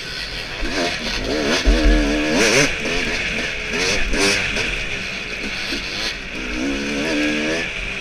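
Yamaha dirt bike engine revving up and down as the rider accelerates, backs off and shifts along a twisting trail, with wind noise on the on-board microphone. A few heavy bumps about two seconds in.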